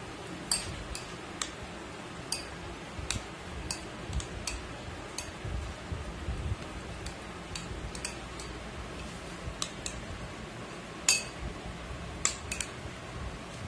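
A metal spoon stirring yogurt in a glass bowl, clinking against the glass at irregular intervals, with one louder clink about eleven seconds in.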